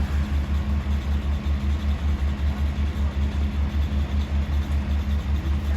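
A large engine idling with a steady, rapid low throb.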